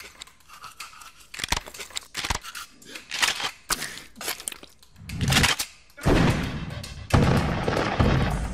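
Cartoon sound effects of eating and tooth-brushing: a string of short crunches and scrubbing strokes. About six seconds in, a louder, steady, noisy sound sets in.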